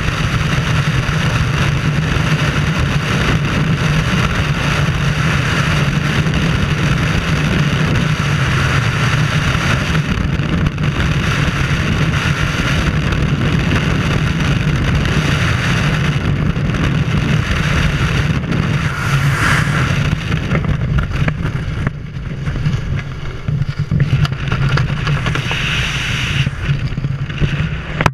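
Skydiving freefall wind rushing over a helmet-mounted camera's microphone, a loud steady rush. It turns uneven in the last few seconds and falls away sharply at the very end as the parachute canopy opens and the fall slows.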